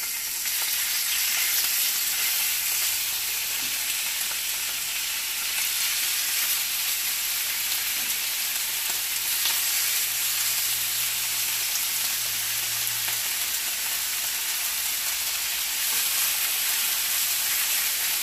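Boneless chicken thighs frying in hot toasted sesame oil in a skillet: a steady sizzling hiss.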